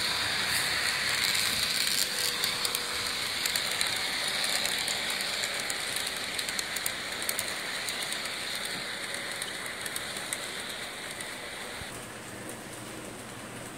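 HO scale model train rolling past on its track: a steady hiss of wheels and motor with rapid clicks of the wheels over the rail joints. It fades as the cars go by, and the hiss stops about twelve seconds in.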